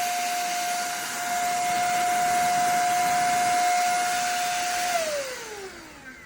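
Cordless handheld vacuum running with a steady high motor whine and a rush of air, then switched off about five seconds in, its whine falling in pitch as the motor spins down.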